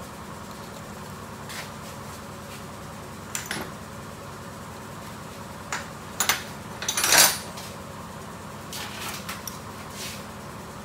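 Metal clinks and a short rattle of hand tools and small steel engine parts being handled during work on a motorcycle engine's centrifugal oil filter. The clinks come singly a few seconds apart, with the loudest rattle about seven seconds in, over a faint steady hum.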